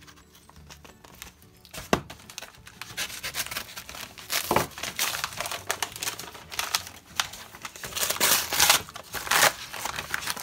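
A brown kraft-paper mailer being torn open by hand: paper tearing and crumpling in rough, uneven bursts that start about two seconds in and grow louder and denser towards the end.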